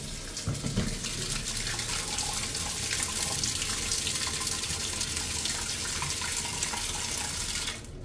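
Tap water jetting from the inlet into the empty perforated spin basket of a Von 7 kg twin-tub washing machine, a steady splashing rush that cuts off suddenly near the end.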